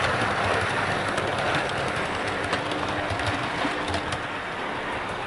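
Hornby Class 395 Javelin model electric train running slowly along the layout's track while being run in: a motor hum and wheels clicking over the rail joints, fading as the train moves away.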